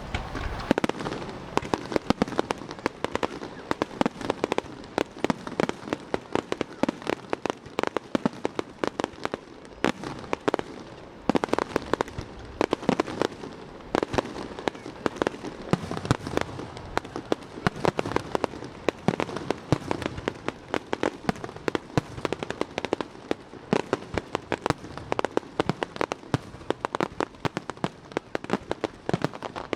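Aerial fireworks bursting: a dense, continuous crackle of many small sharp pops, with louder bangs every second or so.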